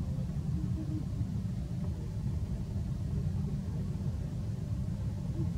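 Low, steady rumble of wind buffeting the microphone.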